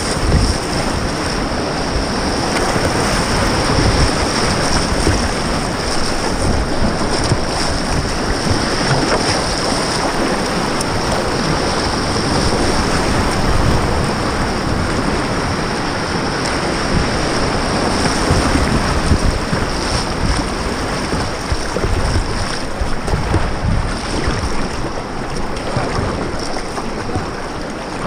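Rushing whitewater of a river rapid around a kayak, with paddle strokes and water splashing against the hull, and wind and water buffeting the camera microphone. The rush eases a little near the end as the kayak reaches calmer water.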